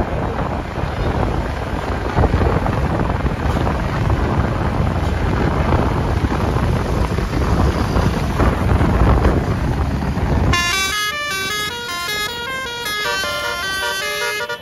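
Heavy rumbling vehicle and road noise, then about ten seconds in a multi-note 'telolet basuri' bus horn takes over, playing a quick tune of stepped notes.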